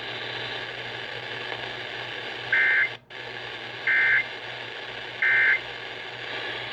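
Emergency Alert System end-of-message data bursts received over weather radio: three short, identical warbling two-tone bursts about 1.3 s apart, over steady radio hiss and hum. They mark the end of the severe thunderstorm warning broadcast.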